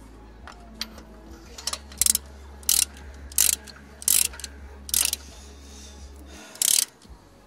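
Ratchet wrench on a spark plug socket clicking in about six short bursts, one per back-swing of the handle, as a new spark plug is run down into the cylinder head.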